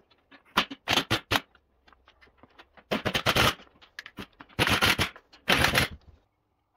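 Impact wrench hammering off the hub nuts of a two-wheel tractor's steel wheel rim. Four short bursts come about a second in, then three longer bursts of about half a second each.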